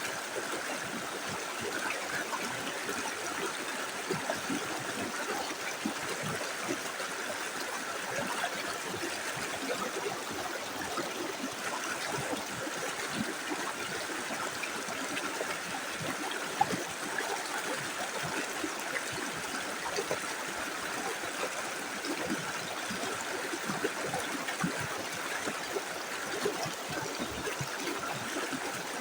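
Small river flowing over stones, a steady rush of water with many small gurgles and splashes.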